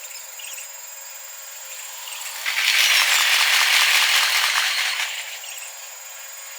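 Train passing at a railway level crossing: a rush of wheel-on-rail rattle that swells for a few seconds in the middle and then dies away.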